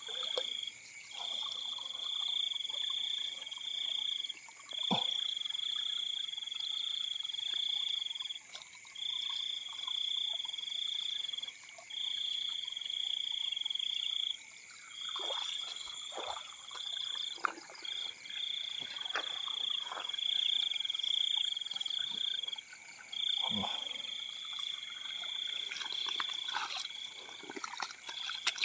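Night chorus of frogs: a high trilling call in long runs of one to two seconds with short breaks, over a steady background of fainter calls. Scattered short knocks and rustles come through now and then.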